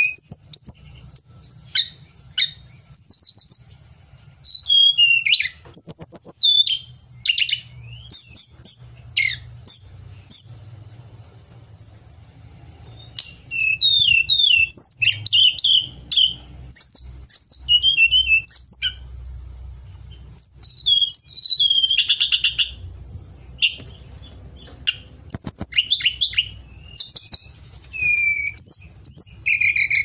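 Hill blue flycatcher singing in a rich run of rapid, sliding high whistles and trills. The phrases come in bursts, with short pauses about a third of the way in and again past the middle.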